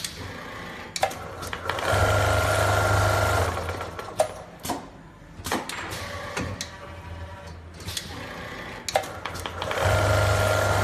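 Richpeace CNC bar-tacking sewing machine stitching tufts into a thick floor cushion: two bursts of fast stitching, one about two seconds in and one near the end. Between them come sharp clicks and clunks as the machine moves and presses between tufts.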